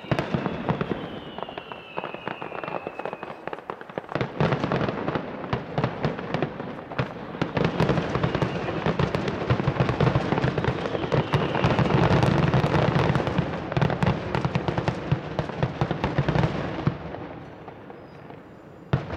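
Fireworks finale: a dense barrage of booming shell bursts and crackling that builds to a peak in the middle and thins out near the end, with one last bang at the close. A falling whistle sounds in the first few seconds.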